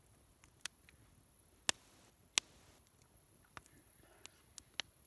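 Campfire crackling: scattered sharp pops at irregular intervals, the two loudest close together about two seconds in.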